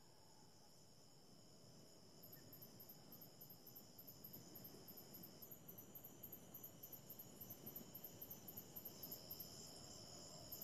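Faint, high insect chirping, about three to four even chirps a second, starting about two seconds in, over a faint steady high-pitched whine and hiss.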